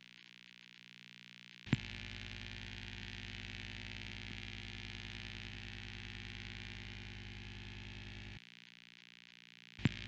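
Low electronic buzz with hiss, the distorted drone of an emergency-alert broadcast. It drops away for the first couple of seconds and again about a second before the end, and each time it cuts back in with a sharp click.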